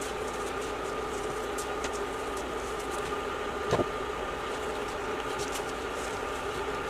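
Steady background hum with a faint high tone, a few faint ticks, and one short soft knock a little before four seconds in.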